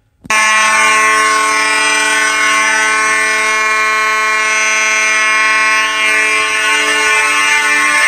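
Simplex 2903 and Space Age AV32 fire alarm horns sounding together in a loud, steady, continuous blare. It starts abruptly about a third of a second in.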